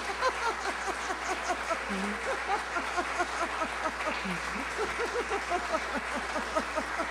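Audience applauding, a dense steady patter of hand claps.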